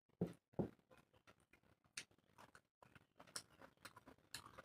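Quiet eating sounds of a person eating rice and curries by hand: chewing and mouth noises with fingers working the food, heard as short scattered clicks and soft smacks, the two strongest in the first second.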